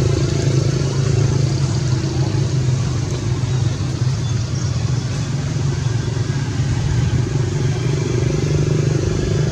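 An engine running steadily, a constant low hum that holds the same pitch throughout.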